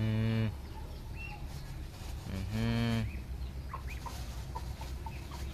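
A cow moos twice: two short, low calls about two and a half seconds apart. A run of faint short clucks from chickens follows.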